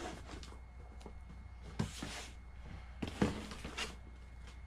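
Cardboard boxes being lifted, shifted and set down on a table: a few soft knocks and scuffs, the loudest about two and three seconds in.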